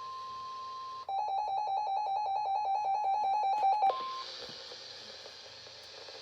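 NOAA Weather Radio's 1050 Hz warning alarm tone, a steady single high tone, cuts off about a second in. The weather radio receiver's own alert siren then sounds rapid, evenly pulsed beeps for about three seconds. Near the end the tone returns briefly, then radio hiss follows.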